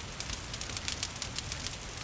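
Wood fire crackling with frequent small sharp pops, over a steady hiss of rain.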